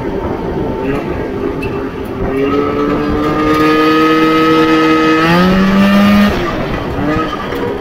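Racing mower's 488 two-stroke twin engine revving under throttle. Its pitch climbs slowly for about three seconds, then rises sharply and holds high for about a second before dropping off the throttle.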